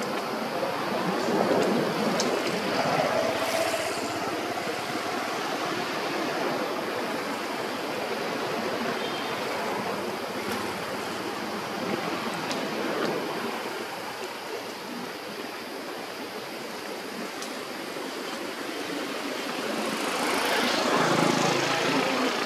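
Steady rushing outdoor noise that swells near the start and again near the end, with a few faint ticks.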